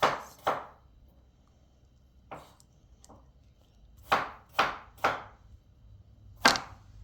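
A series of sharp taps and knocks on a hard tabletop as small items are handled: two near the start, one about two and a half seconds in, three quick ones around four to five seconds, and the loudest near the end.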